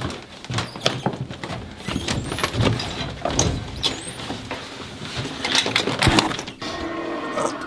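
Clattering knocks and a few high squeaks as people step into an old lattice-gated cage lift and the doors are shut, then a steady hum from about six and a half seconds in as the lift starts.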